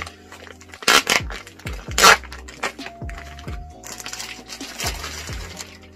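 Plastic vacuum-pack packaging crinkling and rustling as a furry kigurumi is pulled out of it, with sharper crackles about one and two seconds in and again near the end. Soft background music underneath.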